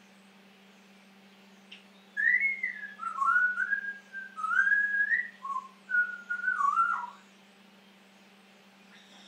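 African grey parrot whistling a rambling string of gliding notes, starting about two seconds in and lasting about five seconds.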